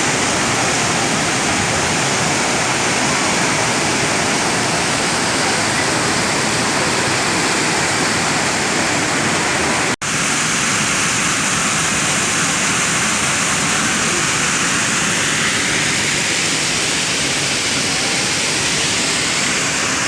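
Düden Waterfall's water pouring close by: a loud, steady rushing that cuts out for an instant about halfway through.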